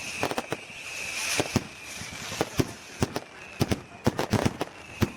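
Fireworks going off: an irregular string of sharp bangs and cracks, many in quick succession, over a hissing fizz, with a thin steady high whistle during the first two seconds and again near the end.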